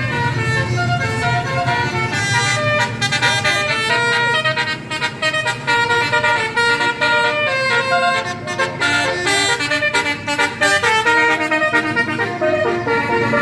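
Bus 'telolet' multi-tone horn playing a melody of short stepped notes over and over, loud.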